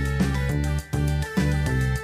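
Background music: an instrumental track with a steady beat over a strong bass line.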